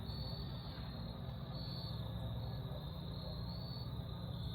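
Insect chorus trilling steadily at a high pitch, swelling and easing every second or so, over a low steady hum.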